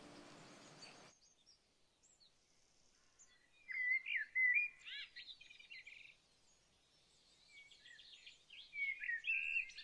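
Birds chirping and singing: quick warbling, sliding calls in two spells, the second near the end, after a short fade-out of music in the first second.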